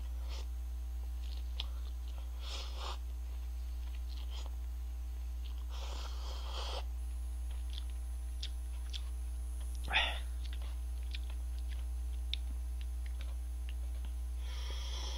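A person eating instant cup noodle soup with wooden chopsticks: short slurps and chewing with small clicks, a longer slurp about six seconds in, and a slurp of broth from the cup near the end. A sharp knock about ten seconds in, over a steady low electrical hum.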